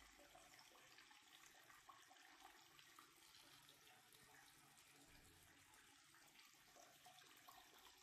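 Faint, steady hiss of hot tap water from an instant water heater pouring in a thin stream into a partly filled plastic bucket.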